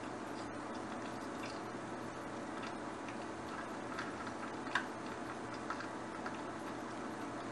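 Pot of spaghetti at a boil on an induction hob: a steady bubbling hiss with a low hum, and a handful of light pops and clicks, the sharpest about two-thirds of the way in.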